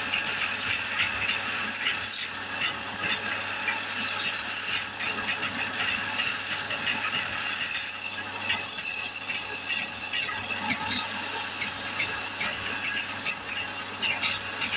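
Wood lathe spinning a small turned spindle while a hand-held tool rubs against the wood, giving a steady scraping hiss over a low motor hum.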